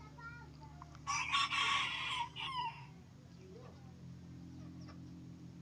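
A rooster crowing once, a harsh call of about two seconds starting about a second in, over a steady low hum.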